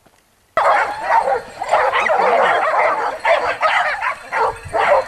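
A pack of hunting hounds barking and yelping over one another, loud and continuous, starting abruptly about half a second in.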